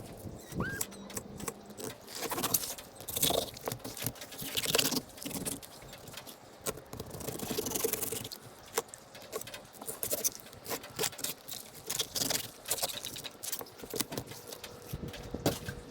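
Knife cleaning sheepshead: irregular sharp clicks and short scraping strokes of the blade against scales and bone.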